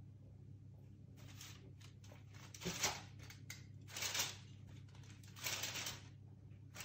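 Hands pressing oat cookie dough into thin flat rounds on a baking tray: four short, faint rustling scrapes about a second apart, over a low steady hum.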